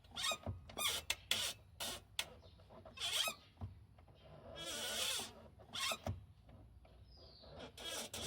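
Clutch on a Toyota 86 / Subaru BRZ squeaking, a short squeak on each stroke, repeated several times. The squeak is the abnormal clutch noise the owner is trying to cure. There is a longer hiss about five seconds in.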